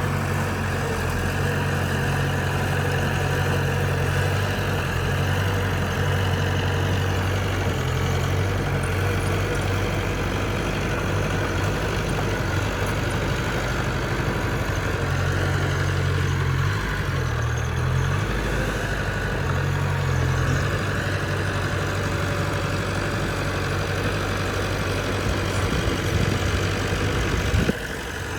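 Bulldozer's diesel engine running steadily with a low drone, its pitch dipping and rising now and then as the load on it changes; the sound briefly drops near the end.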